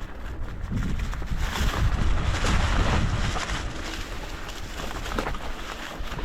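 Vitus Mythique mountain bike riding downhill on a rough dirt trail: wind rumbling on the microphone, strongest in the first few seconds, over tyre noise on dirt and scattered knocks from the bike.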